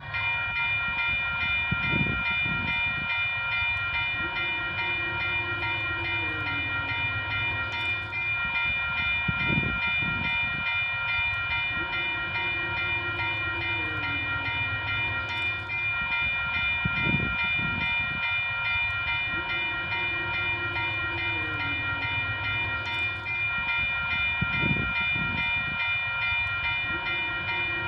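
Locomotive bell ringing continuously, its tones held steady throughout, over a low train rumble.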